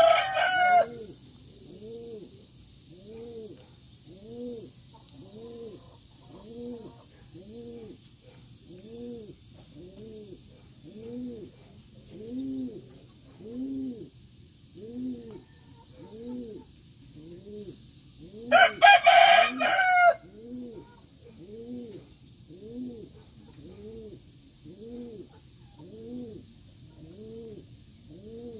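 Pigeon cooing over and over, about one coo a second. A rooster crows twice, the last of one crow right at the start and a full crow about 18 seconds in, each louder than the cooing.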